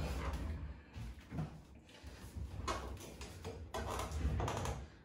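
Office chair on casters rolled across the floor and sat in, with a low rumble at first, then a few short knocks and rubbing sounds as it is pulled up to the desk.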